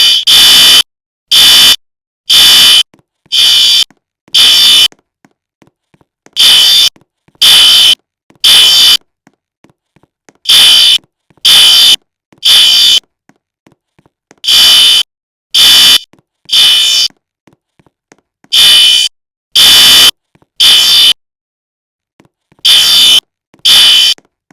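Fire alarm sounder going off very loud with a harsh, buzzy blast. It starts with a run of six evenly spaced half-second blasts, then settles into the temporal-three evacuation pattern: three blasts about a second apart, a pause, and the group repeating roughly every four seconds.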